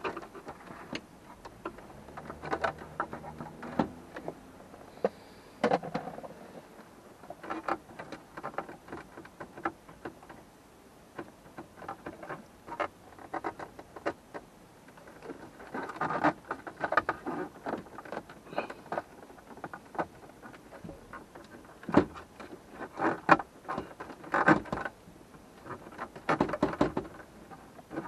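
Irregular clicks, taps and small knocks of hands and tools working on a car's dashboard and gauge cluster trim, in uneven bursts with brief pauses.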